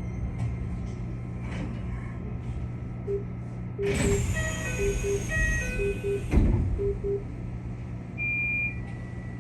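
Keikyu electric train running, heard from the cab: a steady low hum, a brief rush of noise in the middle with a falling whistle, and a series of short paired beeping tones about once a second.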